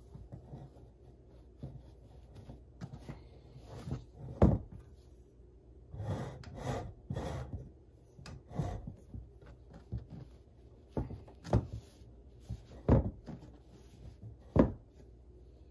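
Objects being handled and set down: scattered knocks and clacks, with a stretch of rustling about six seconds in and several sharper knocks in the last few seconds.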